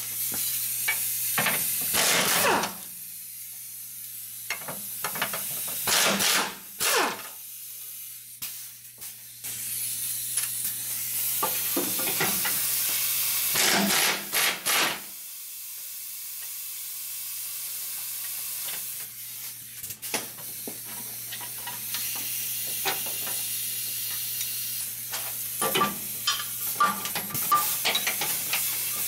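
Workshop tool noise under a truck during transmission removal: short loud bursts of tool work about two, six and fourteen seconds in, and a cluster of metallic clicks near the end, over a steady hiss and low hum.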